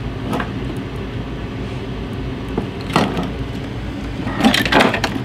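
A steady low mechanical hum with a few sharp clicks and knocks, the loudest cluster near the end.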